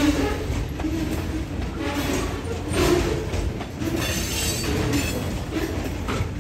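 Freight cars rolling past at close range over rough track: a steady low rumble of steel wheels with clattering knocks as the trucks pass, and a brief high wheel squeal about four seconds in.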